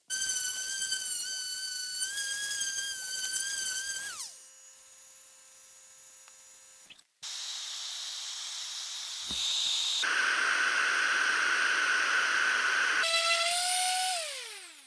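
Electric random orbital sander whining at full speed, then winding down with a falling pitch when switched off. After a cut it runs again with a steady sanding hiss against the wooden paddle, louder from about two-thirds of the way in, and winds down again with a falling whine near the end.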